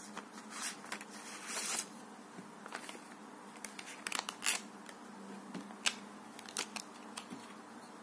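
Clear plastic blister packaging being opened by hand, with irregular crinkling and sharp crackles and clicks as a folding knife is pulled from its plastic sleeve. The loudest crackles come at about one and a half, four and a half and six seconds in.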